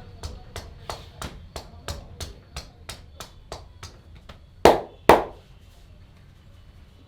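Hands rhythmically slapping and tapping on a head during a head massage, about three strikes a second, then two much louder hand strikes about half a second apart.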